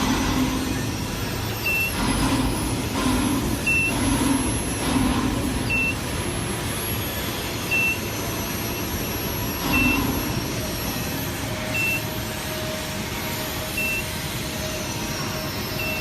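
Short high electronic beep repeating about every two seconds over steady machinery noise. About ten seconds in, a steady hum tone joins.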